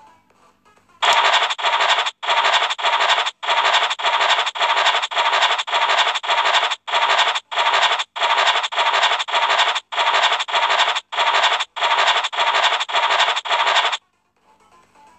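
Online scratch-card game's scratching sound effect: a rapid, even run of short scratchy swishes, about two a second, one for each number being uncovered in auto mode, starting about a second in and stopping shortly before the end.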